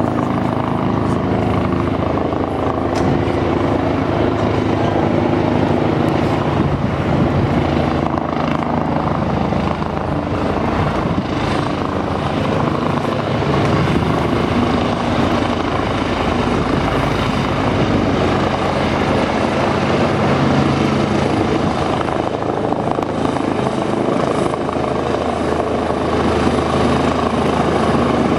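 Helicopter in flight on its approach to land, its rotor and turbine running steadily as it draws nearer.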